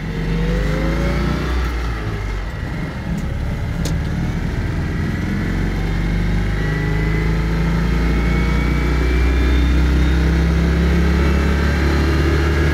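Citroën 2CV van's small air-cooled flat-twin engine driving, picking up revs in the first second or so and then running steadily at high revs.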